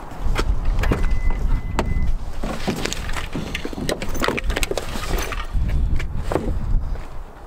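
Clicks, knocks and rustling as a Subaru sedan's trunk is opened and a gym bag is pulled out and handled, over a steady low rumble. A steady high beep sounds for about a second, starting about a second in.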